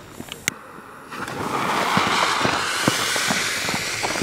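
A small ground fountain firework lit by its fuse: a sharp click, then about a second in a steady hissing spray starts and holds, with scattered small crackles.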